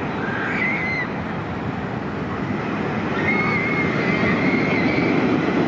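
Steady rushing rumble of the X2 steel roller coaster's train running along its track, swelling about three seconds in, with faint high wavering squeals over it.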